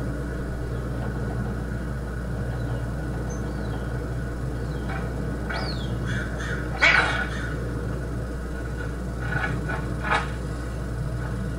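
A cat batting a small food dish across a porch floor: a few short clatters and scrapes over a steady low hum, the loudest about seven seconds in.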